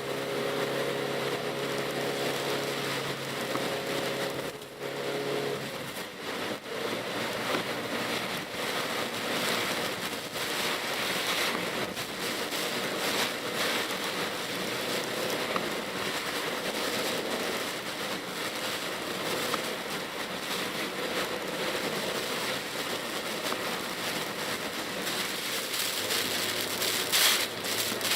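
Heard from inside the cabin of a Pajero Mini kei SUV driving in typhoon rain: raindrops hitting the roof and windscreen over a steady wash of tyre and road noise. The engine's hum is plain for the first six seconds or so and then sinks under the rain noise, with a low hum returning near the end.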